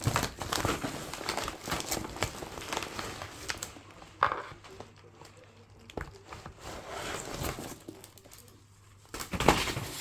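Packaging crinkling and rustling as a gift box is unwrapped, in bursts of crackles, quieter in the middle and loud again near the end.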